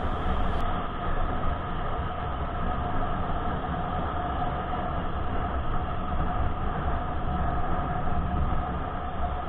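Motorcycle riding at a steady cruising speed: the engine runs evenly under a constant rush of wind and tyre noise.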